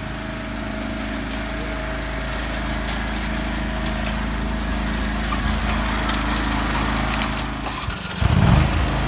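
Lawn mower engine running steadily at an even speed. Near the end it briefly cuts out and is followed by a short, louder low bump.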